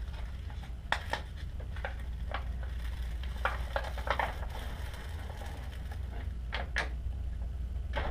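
Strips of brown paper grocery bag rustling and crinkling as they are handled on the glue side of a climbing skin, with scattered light knocks on the workbench, over a steady low hum.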